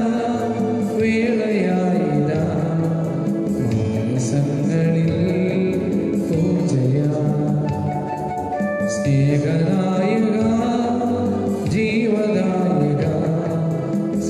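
A Malayalam church hymn, sung with instrumental accompaniment.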